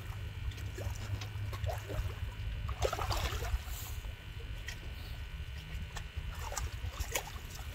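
A hooked drum thrashing at the water's surface, splashing several times, with the biggest splash about three seconds in, over a steady low rumble.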